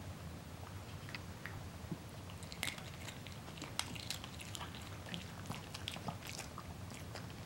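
A Shih Tzu crunching a hard dog treat in its mouth: a run of quick, irregular crunches and clicks, thickest from a couple of seconds in.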